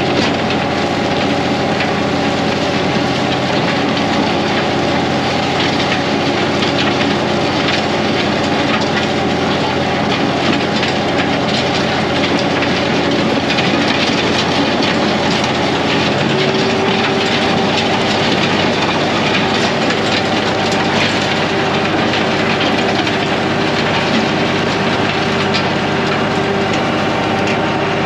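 Tractor engine running steadily under load while dragging an 84-inch land plane across a gravel driveway, with gravel crunching and the steel plane and hitch rattling. The engine's note changes a little over halfway through.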